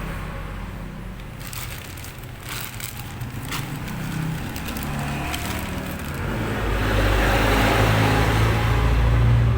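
A few sharp clicks and crackles, then a steady rumbling noise that grows louder over the last few seconds, like a motor vehicle running close by.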